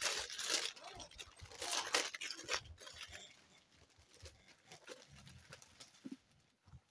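Wrapping paper tearing and rustling as a Christmas present is unwrapped, loudest in the first two or three seconds, then quieter crinkling and handling.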